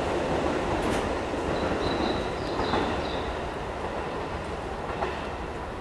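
Keisei 3300 series electric train running away into the distance, its wheels clattering over the rail joints as the sound slowly fades. A faint, thin, high squeal from the wheels comes and goes about two to three seconds in.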